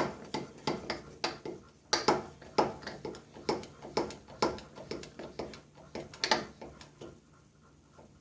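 Central Hydraulics 8-ton hand hydraulic crimper being pumped to crimp a lug onto 6-gauge wire: a sharp click about twice a second with each handle stroke, stopping about seven seconds in.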